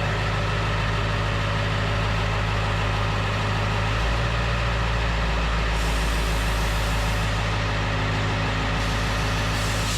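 7.3L Powerstroke turbo-diesel V8 idling steadily.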